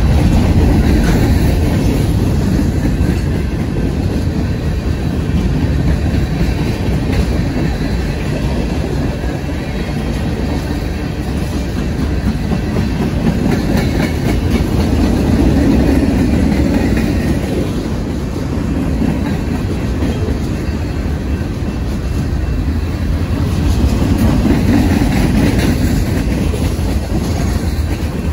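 Freight cars of a Union Pacific manifest train rolling past, their steel wheels rumbling steadily on the rails. The sound swells and eases every several seconds as the cars go by.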